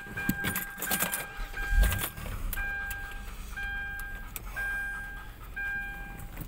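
Repeating electronic beep, one long tone about every second, with scattered light clicks and a low rumble swelling about two seconds in.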